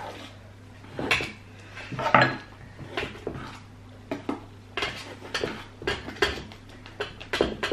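Utensils scraping and clinking against stainless steel mixing bowls as thick fluffy slime is stirred, in irregular knocks a few times a second, the loudest about two seconds in.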